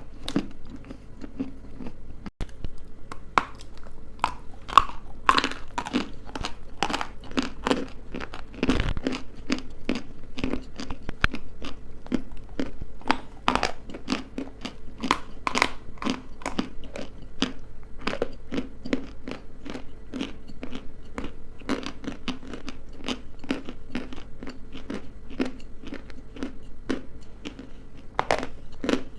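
Someone biting and chewing dry edible clay or chalk, a steady run of sharp crunches several times a second.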